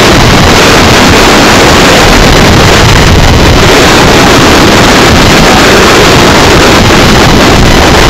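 Loud, steady wind buffeting the microphone of a sailboat sailing hard, mixed with water rushing past the hull.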